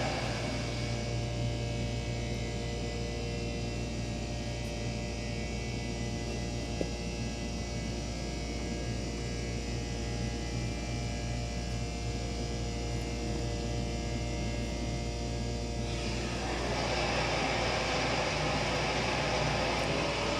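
Elevator hoist machinery running in the machine room as a car travels: a steady electric hum with several fixed whining tones. A louder rushing noise at the start grows again in the last few seconds.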